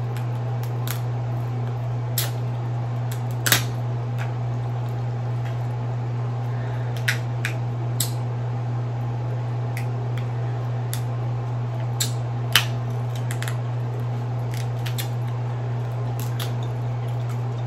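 King crab leg shells cracking and snapping as they are broken apart by hand: scattered sharp cracks and clicks, the loudest about three and a half seconds in and again past the middle, over a steady low hum.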